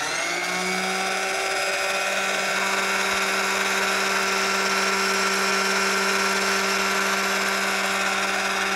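Master Mechanic MM2908 wet wheel sharpener switched on and running with no load: its motor and wheel rise to speed within about a second, then hold a steady, loud whine. It runs smoothly, in working order.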